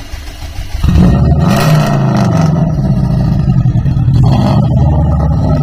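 A Subaru WRX's turbocharged flat-four engine fires up about a second in, revs briefly, then runs steadily through its exhaust. It is being run to trace a whine that the owners think sounds like the timing belt rubbing on something.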